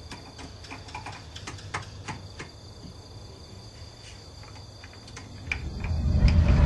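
Crickets chirping steadily, with scattered faint clicks. Near the end a rush of noise swells up loud and cuts off abruptly.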